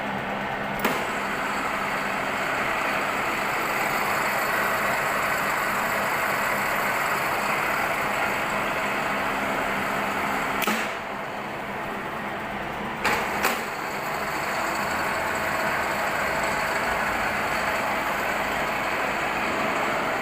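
Universal milling machine running steadily, its motor and gearbox giving a constant mechanical hum with several steady tones. Sharp clunks sound about a second in, once near the middle, and twice in quick succession a couple of seconds later.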